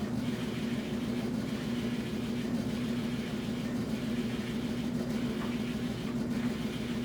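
Washing machine running, a steady motor hum over a constant churning noise.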